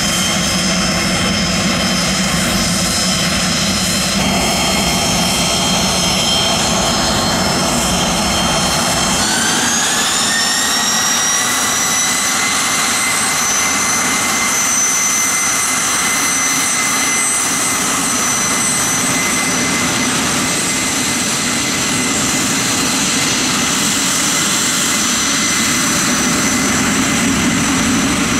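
Pilatus PC-24's twin Pratt & Whitney Canada PW306B turbofans whining at taxi power. About nine seconds in, the whine rises in pitch as the engines spool up, then holds steady.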